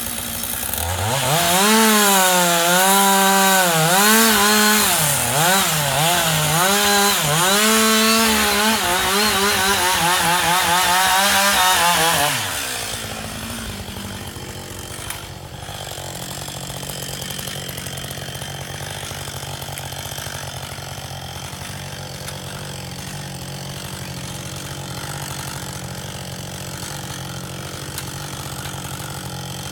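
Husqvarna 560XPG two-stroke chainsaw at full throttle cutting into wood, its revs dipping and recovering again and again under load. About twelve seconds in the throttle is released and the saw settles to a steady, much quieter idle.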